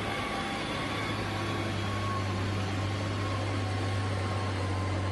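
A heavy diesel engine running steadily, giving a low, even drone with a faint higher whine over it.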